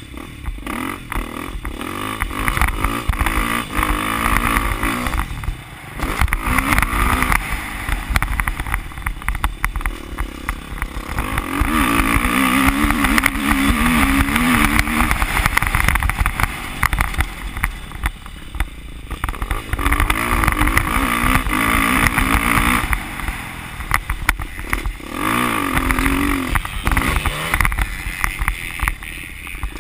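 Dirt bike engine under hard throttle on a motocross track, revving up in long pulls and dropping off sharply several times as the rider backs off into corners.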